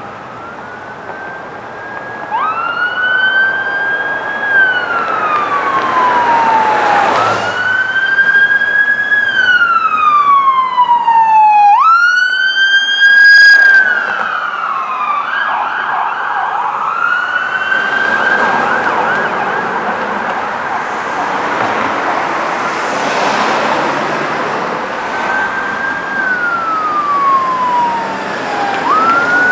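Electronic emergency sirens in wail mode, each cycle rising quickly, holding, then falling slowly, about every four to five seconds. The California Highway Patrol SUV's siren grows loud as it passes close about halfway through, briefly switching to a fast warbling yelp, and a second wail siren, from a CAL FIRE Battalion Chief's vehicle, sounds as it approaches near the end, over traffic noise.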